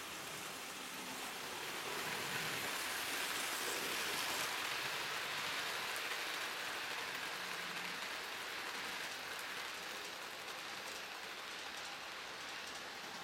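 HO-scale Märklin model train running past on the layout's track: a steady rushing hiss of wheels and motor that swells about two seconds in, is loudest a few seconds later as the train goes by, then eases off.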